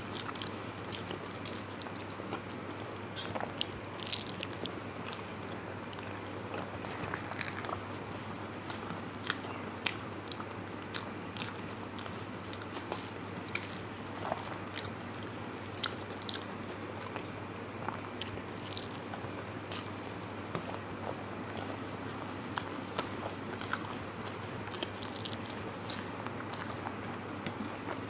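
Close-miked chewing and mouth sounds of a person eating a rice meal, with frequent small wet clicks and occasional crunches.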